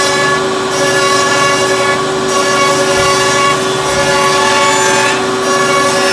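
Three-head CNC wood router running, its spindles giving a steady whine of several held tones over a hiss as they cut wood. The hiss dips briefly about every second and a half.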